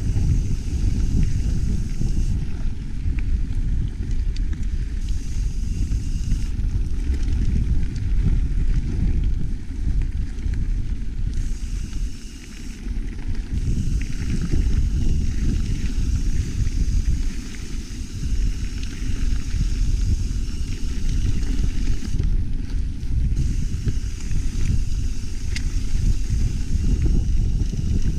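Wind rumbling on an action camera's microphone during a mountain bike ride. A higher hiss from the moving bike cuts in and out every few seconds.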